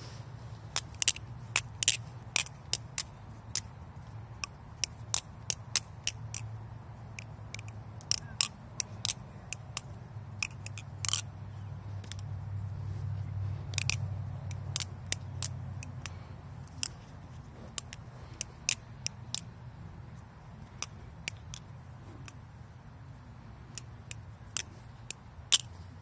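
Balisong (butterfly knife) being flipped, its handles clacking in sharp, irregular clicks, often in quick pairs or clusters, over a low rumble.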